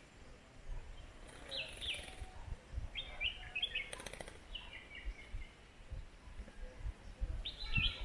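Red-whiskered bulbuls calling in short phrases of quick chirps, four times. About four seconds in comes a brief flutter of wings as a bulbul shakes itself at the bird bath.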